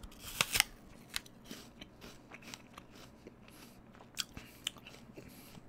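A bite into a firm, crunchy SugarBee apple: a loud crunch as the teeth break through, then chewing with a scatter of smaller crunches.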